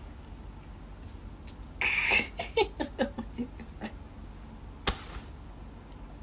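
A woman's short, soft breathy laugh about two seconds in, trailing into a few faint vocal sounds, then a single sharp click a little before five seconds; otherwise quiet room tone.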